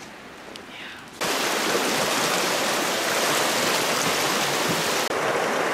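River water rushing steadily beneath a log crossing, starting abruptly about a second in.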